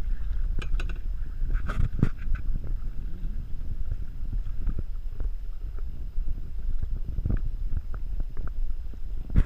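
Wind rumbling on the microphone over canoe paddling: the splash and drip of paddle strokes in the water, with a few sharp knocks scattered through, the loudest about two seconds in.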